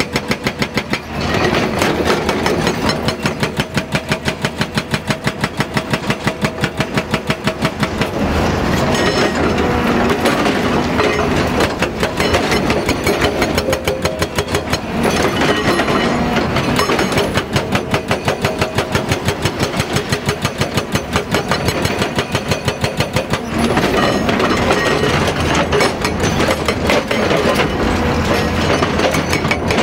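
Hyundai HDB230 hydraulic rock breaker on a Hyundai 215 Smart Plus crawler excavator, hammering with rapid, even blows over the excavator's running diesel engine. The hammering grows louder several times.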